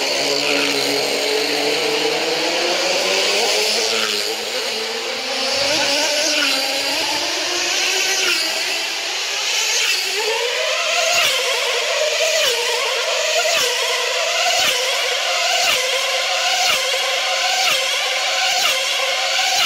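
Tethered model race car's small nitro two-stroke engine running flat out as the car laps on its cable, its high whine climbing in pitch as it gathers speed. About halfway through, the pitch jumps up and then holds steady, and the car sweeps past about once a second at its full speed of over 240 km/h.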